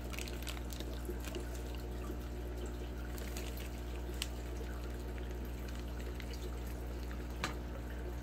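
Aquarium water trickling and dripping over a steady low hum, with scattered small drips and one sharper click near the end.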